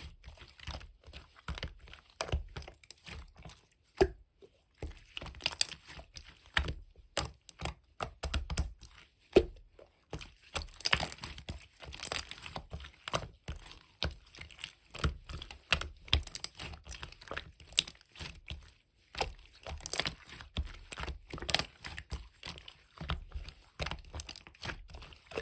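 Slime being squeezed and pressed by hand, giving an irregular run of sticky crackling clicks and pops.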